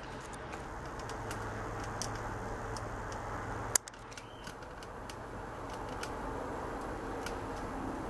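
Microwave oven running with a cup inside, giving a steady electrical hum from its transformer and magnetron, with faint scattered ticks. A single sharp click sounds a little under four seconds in.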